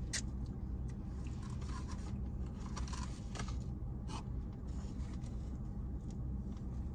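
Faint scattered scrapes and rustles of eating and food wrappers being handled, over a steady low hum.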